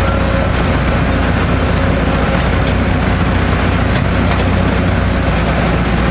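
Caterpillar 325C excavator's diesel engine running steadily, a low drone with the noise of the machine working its bucket in a trench.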